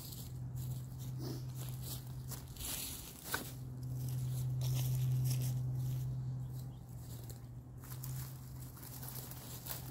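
Footsteps crunching through dry fallen leaves and the rustle of dry brush being handled, with one sharp knock a little over three seconds in as the loppers are laid on the ground. A steady low hum runs underneath, louder in the middle.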